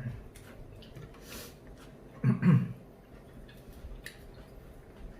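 A person tasting soup: a short slurping sip about a second and a half in, then a brief sound of the voice just after two seconds, with a few faint clicks of spoon or dish.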